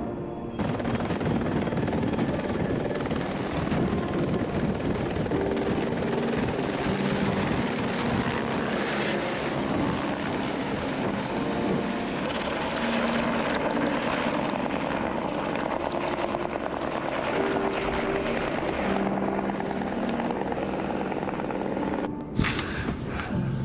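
Helicopter running close by: a dense rotor chop and engine noise at a steady level. It starts suddenly about half a second in and cuts off shortly before the end.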